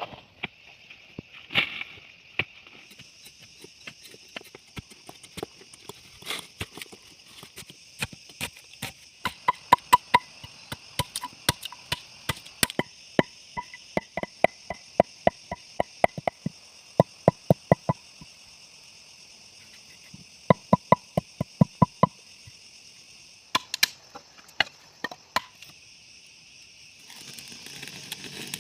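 Runs of sharp knocks, about four a second, like chopping or pounding, over a steady high chirring of insects.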